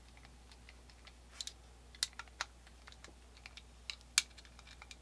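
Faint, irregular small clicks and ticks of a screwdriver snugging the back strap screws on a Colt black powder revolver, with one sharper click about four seconds in.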